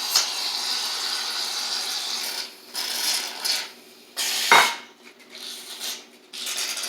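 Aerosol can of shaving cream hissing as foam is sprayed out. A long steady hiss comes first, then shorter spurts with pauses, and one sharp sputtering spurt about halfway through.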